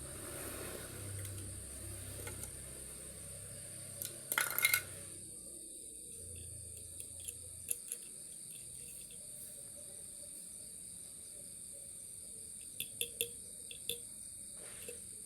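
Steady high-pitched insect chirring, like crickets, with a short cluster of sharp clicks and taps about four seconds in and a few more scattered clicks near the end.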